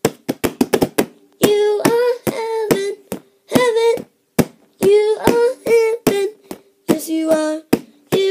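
A child's voice singing short, high, wordless notes, with sharp clicks between them and a quick run of clicks at the start.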